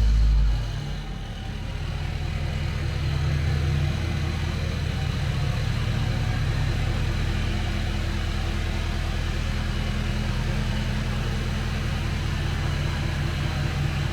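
Kubota tractor's diesel engine running steadily at idle, with a brief louder low rumble at the very start.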